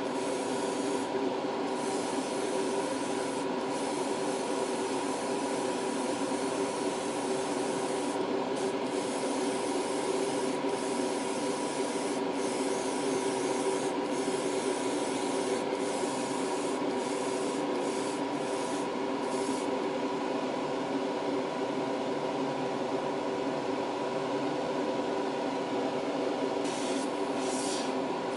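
Airbrush spraying paint, a steady hiss that breaks off briefly again and again as the trigger is let go, over the constant hum of a small hobby air compressor.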